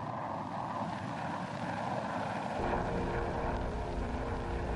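Jet aircraft in flight: steady engine noise, joined a little over two and a half seconds in by a deeper rumble and a steady hum.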